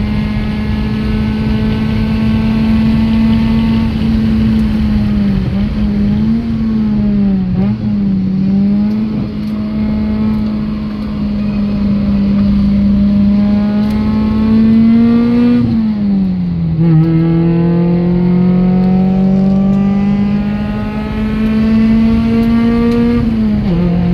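Car engine heard from inside the cabin, pulling hard on a race track: its pitch climbs steadily under acceleration, wavers up and down for a few seconds as the throttle is lifted and reapplied through bends, then drops sharply at an upshift about two-thirds of the way through and again at the very end.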